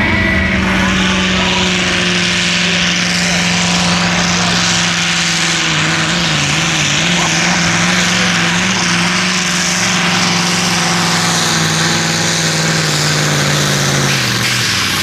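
Magirus Deutz pulling truck's diesel engine running flat out under load as it drags a pulling sled. The steady engine note sags slowly in pitch as the pull goes on, then drops away shortly before the end.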